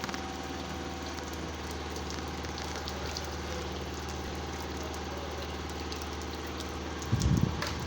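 Water fountain running: a steady splash and patter of falling water over the even hum of its pump. A few low thumps come about seven seconds in.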